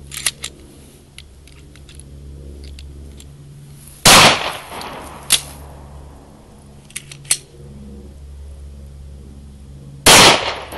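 Two pistol shots from a .40 S&W Glock, about six seconds apart, each with a short echo tail. A few lighter sharp clicks come between them.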